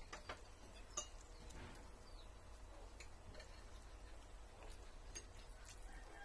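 Faint, scattered clinks of spoons and forks against ceramic plates while eating, the sharpest about a second in, over a low steady hum.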